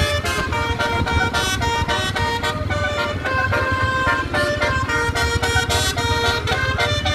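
Indonesian tour bus's telolet horn playing a quick melody of changing notes, over the bus's diesel engine running.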